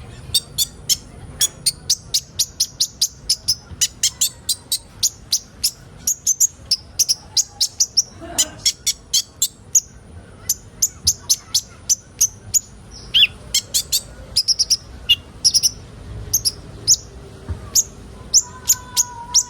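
Olive-backed sunbirds calling: a fast, steady series of sharp, high chips, about three a second, broken by a few short trills.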